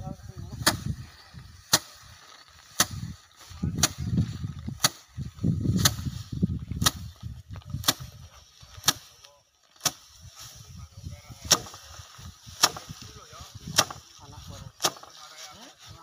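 Rice sheaves beaten by hand against a slatted wooden threshing rack to knock the grain off the stalks, a sharp whack about once a second with a short pause about ten seconds in. A low rustling of straw runs between the strikes.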